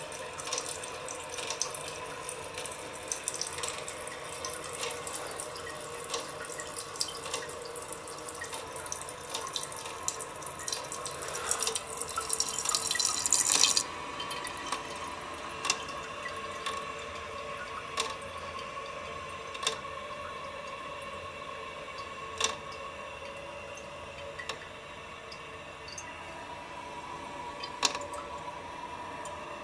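Water hissing through an old toilet tank's ballcock fill valve as the tank fills. A louder rush builds and cuts off sharply about fourteen seconds in, leaving a quieter hiss with a few scattered drips.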